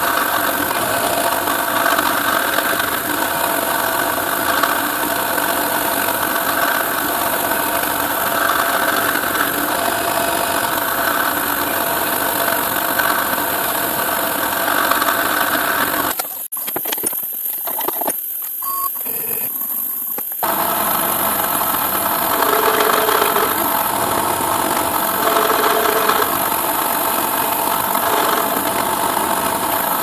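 CNC milling machine spindle running while a twist drill cuts holes in a metal plate, a steady machining noise. It breaks off for about four seconds just past the middle, then resumes.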